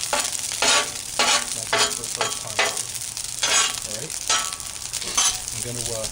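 Metal spatula scraping and turning food across a hot Blackstone griddle top: about nine quick scrapes at uneven intervals over a low sizzle.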